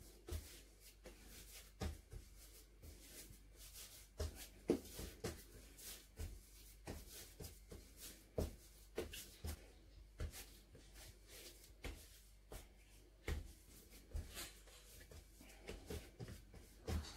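Hands kneading sourdough bread dough on a floured countertop: soft, irregular thumps and rubs as the dough is pressed, folded and turned, about one or two a second.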